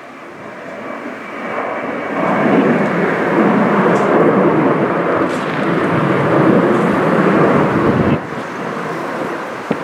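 Boeing P-8A Poseidon's twin CFM56 turbofans, loud jet noise as the aircraft passes close during a touch-and-go. The noise swells over the first couple of seconds with a faint high whine, holds, then drops off abruptly about eight seconds in.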